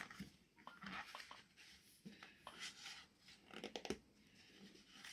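Faint, scattered rustles and crinkles of paper being folded and creased by hand.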